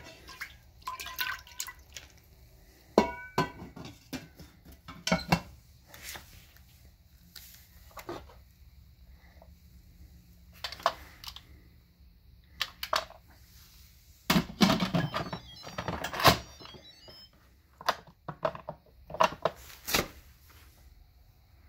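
Handling of an Instant Pot IP-LUX pressure cooker's lid: scattered clicks and knocks of plastic and metal, some ringing briefly, with a denser run of rattling clicks about two-thirds of the way through.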